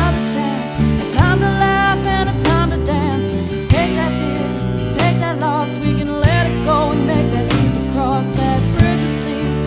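Background song with a woman or man singing over guitar and a steady beat.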